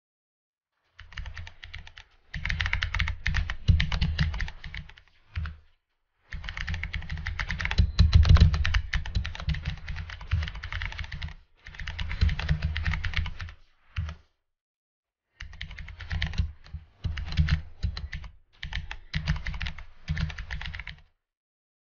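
Typing on a computer keyboard: fast runs of key clicks in several bursts, with short pauses between them.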